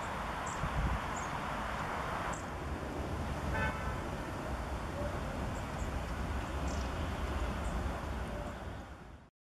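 Long-tailed tits giving short, very high, thin calls at irregular intervals over a steady background rumble. A brief lower-pitched note sounds about three and a half seconds in.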